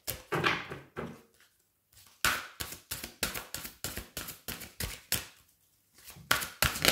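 A deck of oracle cards being shuffled by hand. The cards make a quick run of soft slaps, about five a second, that stops briefly near the end and then starts again.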